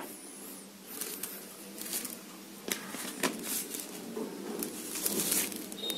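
Hands handling a smartphone and its clear plastic back cover: scattered light plastic clicks and taps, with a stretch of rustling about five seconds in.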